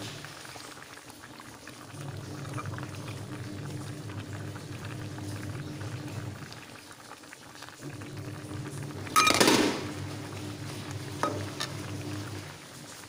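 Tilapia gulai, a coconut-milk curry, simmering and bubbling in a pan. There is a brief loud noise about nine seconds in and a small click a couple of seconds later.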